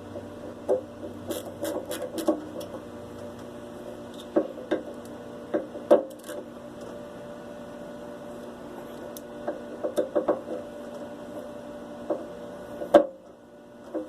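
Scattered light clicks and taps of small metal parts and hand tools being handled as a ratchet is put back together, over a steady background hum. One sharper click comes near the end.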